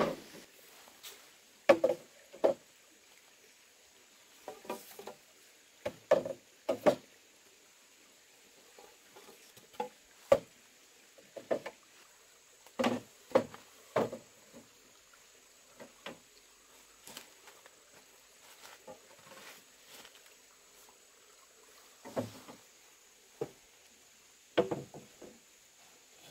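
Hollow knocks of green bamboo poles striking one another and the ground as they are lifted and laid down, about a dozen irregular knocks, some in quick pairs or clusters.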